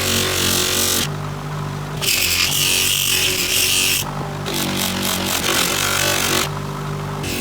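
Electric power tool's motor running steadily on the metal of a vise being restored. A harsh scraping hiss comes and goes in spells of one to two seconds as it is pressed on and lifted off the work.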